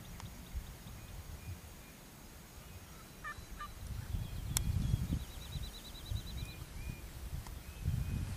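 Wild tom turkey gobbling: a rapid rattling call about five seconds in, preceded by a few short calls and a sharp click, over a low steady rumble.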